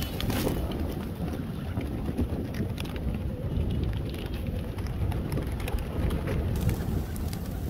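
Many rock pigeons' wings flapping and clattering as the flock lands and takes off close by, a dense patter of small wingbeats, over a steady rumble of wind on the microphone.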